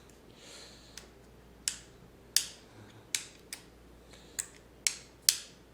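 About eight sharp, uneven clicks from the power switch of a Dirt Devil Platinum Force upright vacuum being flicked, with no motor sound: the vacuum fails to start.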